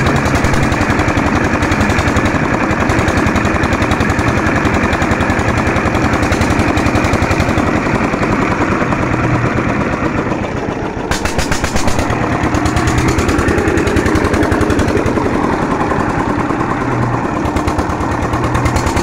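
Old 16 HP Petter diesel engine running steadily under load with a rapid, even exhaust beat, driving a tubewell pump through a long flat belt.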